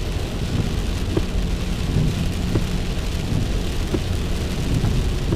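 Heavy rain on a car, heard from inside the cabin, over a steady low rumble as the car rolls slowly through standing water. A soft tick repeats about every second and a half.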